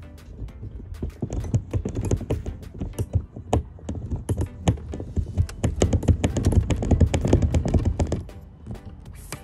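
Old cracked windshield being pushed out of its frame: rapid, irregular crackling and snapping as the glass flexes and tears free of its adhesive seal. It builds after about a second, is loudest a little past the middle and dies down near the end.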